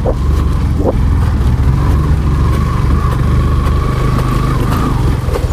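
Motorcycle engine running steadily under way.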